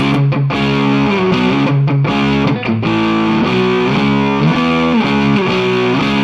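Godin Freeway electric guitar played with distortion: a continuous riff of picked, ringing chords that change about every half second.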